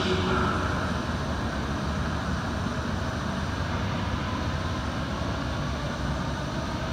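Alstom Citadis Spirit electric light-rail train running away along the track, a steady low rumble that eases slightly in the first second and then holds.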